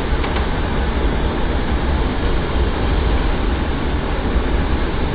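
JCB 220 LC tracked excavator's diesel engine running steadily under work: a loud, even rumble with no single knocks or changes standing out.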